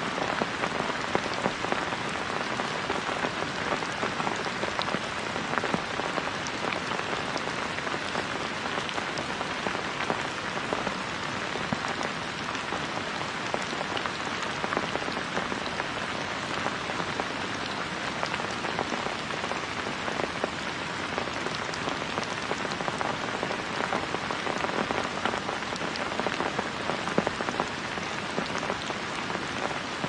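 Steady rain falling, made up of many separate drop hits at an even level.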